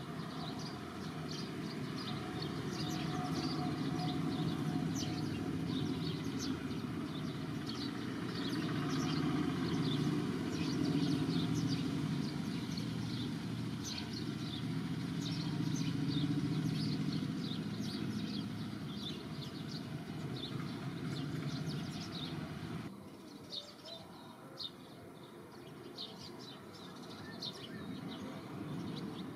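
Many short bird chirps throughout, over a low steady rumble that cuts off abruptly near the end, leaving the chirps on their own.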